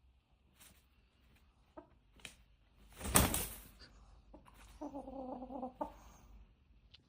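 Chickens clucking and calling: scattered short clucks, a loud harsh burst about three seconds in, and a one-second call at a steady pitch near the five-second mark.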